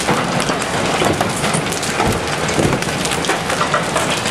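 Golf-ball-sized hail pounding the roof and windows of a vehicle, a dense, steady clatter of hard impacts heard from inside the cabin.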